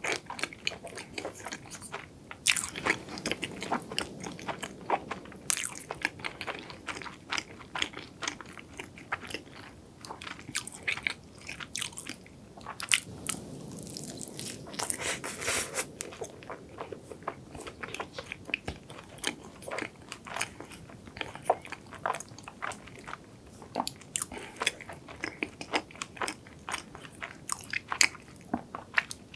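Close-miked biting and chewing of a cronut, a layered croissant-dough doughnut with a cream topping. Many small sharp crackles from the flaky pastry layers are mixed with softer chewing.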